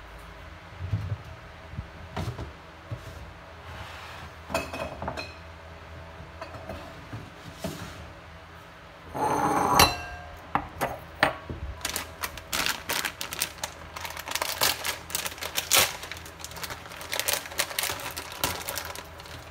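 Glass bowls and a glass jar handled on a kitchen countertop: scattered clinks and knocks, a louder scrape or rush of about a second about nine seconds in, then a dense run of small clicks and rustles through the second half.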